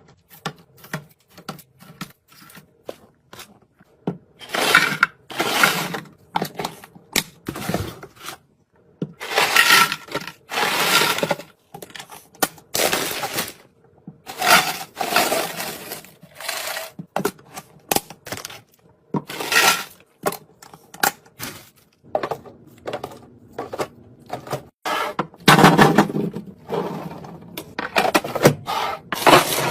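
Plastic food containers and crinkly snack packaging being handled: irregular clicks and knocks, with several longer stretches of crackling and rustling.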